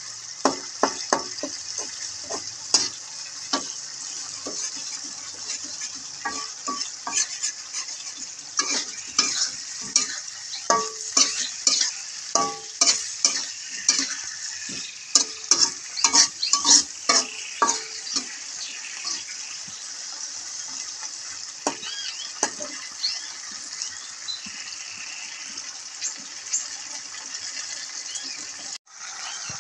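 Metal spatula scraping and knocking against a wok while salted fish with chilies and tomato stir-fries, over a steady sizzle of hot oil. The spatula strikes come in quick runs through the first half, then thin out. The sound cuts out for an instant near the end.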